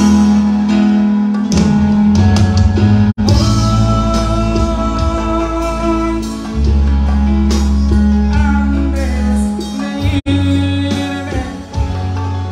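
Live band music over a concert sound system, with guitar, a strong bass line and a singing voice. The sound drops out for an instant twice, about three and ten seconds in.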